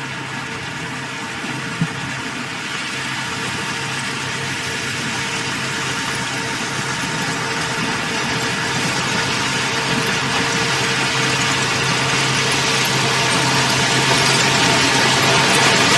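Heavy diesel engine of construction machinery running steadily, getting gradually louder, with a single short knock about two seconds in.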